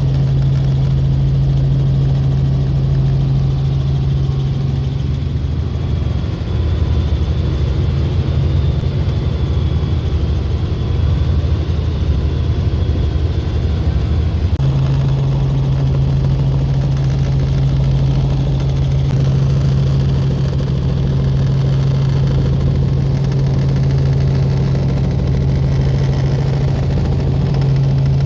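Helicopter running with a loud, steady drone and a strong constant low hum. The hum eases for several seconds mid-way, then comes back.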